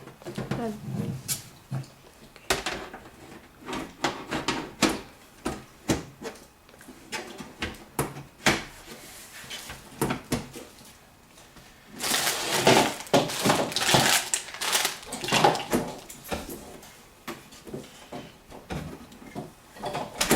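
A computer case being handled and closed up: scattered clicks and knocks, growing denser and louder for a few seconds about twelve seconds in.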